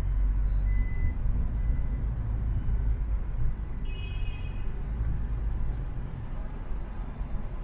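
Steady low rumble of a car driving through city traffic, engine and road noise. About four seconds in, a short high-pitched beep sounds for about half a second.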